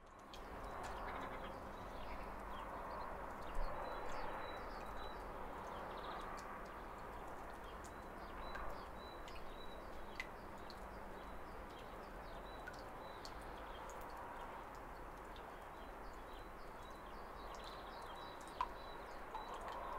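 Outdoor ambience fading in: a steady wash of background noise with faint, scattered bird chirps and a few short clicks.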